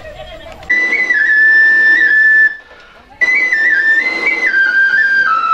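Indian basari flute playing a slow melody. It comes in under a second in with high held notes and plays two phrases, each stepping down in pitch, with a short breath pause between them.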